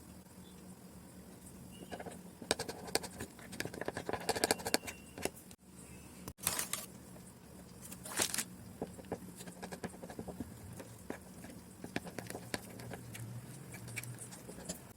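Toothpaste-and-sugar slime being mixed and handled: irregular sticky clicks and squishing crackles in clusters, over a faint steady low hum.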